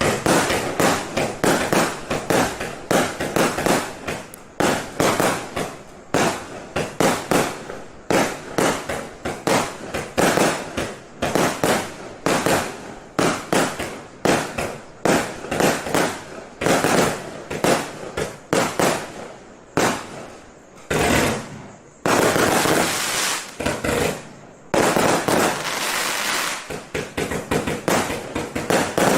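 Gemstone 'Guess What (Girl)' firework going off: a rapid, uneven run of sharp bangs, several a second, and near the end two spells of a few seconds each where the shots merge into a continuous crackling hiss.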